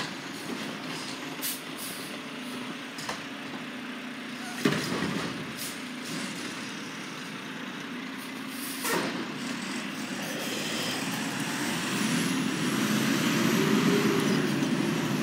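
Automated side-loading garbage truck running in the street: a steady engine hum while its lifting arm works, two sudden loud bursts about a third of the way in and again past the middle, then the engine noise rising as the truck pulls away.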